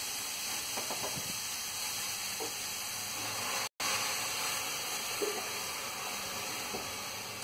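Grated carrots sizzling with a steady hiss in a hot steel kadhai as they are stirred with a slotted spatula, the spatula scraping lightly now and then. The sound cuts out for an instant a little after halfway.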